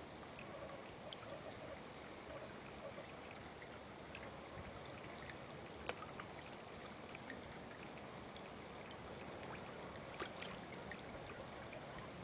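Steady pouring and trickling of water in a garden koi pond, with small splashes and plops from koi feeding at the surface, a sharper one about six seconds in and two more just after ten seconds.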